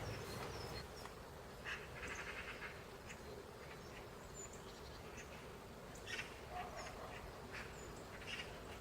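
Wild birds calling at a winter feeder: scattered short high chirps, with a brief buzzy call about two seconds in.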